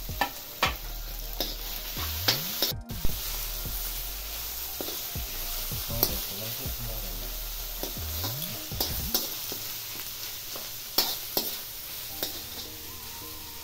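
Sliced onions sizzling in a hot steel wok, stirred with a metal spoon that scrapes and clinks against the pan again and again.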